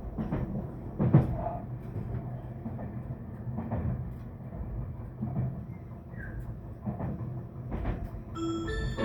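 Cabin noise of a Tobu N100 series Spacia X electric limited express running: a steady low rumble with a few thumps from the track. Near the end, the on-board announcement chime starts, a bell-like melody.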